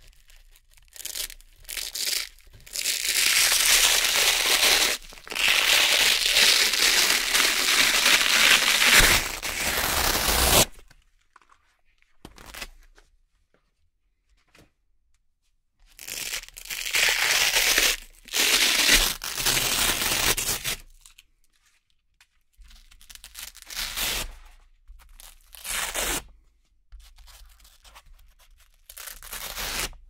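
Red Velcro (hook-and-loop) strips being peeled apart by hand with a rasping rip. Two long, loud stretches of ripping last several seconds each, then shorter, quieter rips come near the end.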